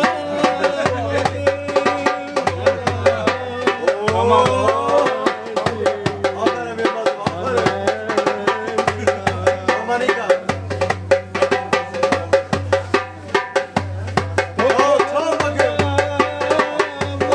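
A man singing while beating a small metal-shelled hand drum with his bare hands, a quick, steady run of sharp strokes. His voice rises over the drumming about four seconds in and again near the end.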